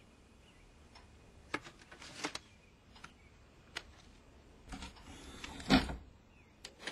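Scattered sharp clicks and light knocks about a second apart, with a louder clatter about five to six seconds in.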